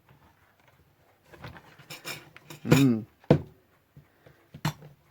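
A metal hand tool clicking and knocking against the radio's parts while a stuck part is pushed and pried. The sharp clicks come in clusters, with one short grunt of effort near the middle.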